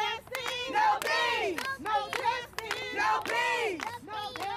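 Protest crowd chanting and shouting in rising and falling phrases, with sharp percussive hits between the phrases.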